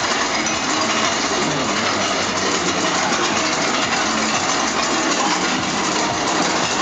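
Steady, loud noise of a roller coaster train running along its track, mixed with faint crowd voices.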